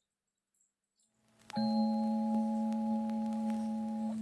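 Silence, then about a second and a half in, background music starts suddenly: a sustained bell-like chord that shifts to a new chord at the very end.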